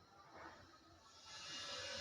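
Dals and peanuts frying in hot oil in a pan: a faint sizzle that swells and grows louder about a second in.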